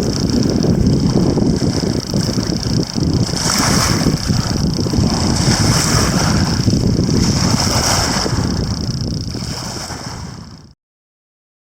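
Wind buffeting the microphone: a heavy low rumble with hiss, swelling now and then, fading out near the end.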